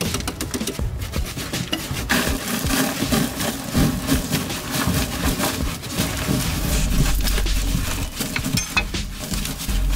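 Hand tools scraping and chipping at packed earth in a cramped dug tunnel: a dense run of rough scrapes and short knocks, one after another.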